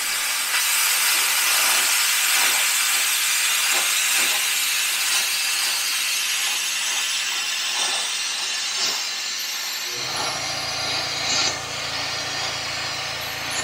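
ESAB Cutmaster 40 air plasma cutter cutting metal: the plasma arc and air jet make a loud, steady hiss. About ten seconds in the hiss eases and a low hum sets in.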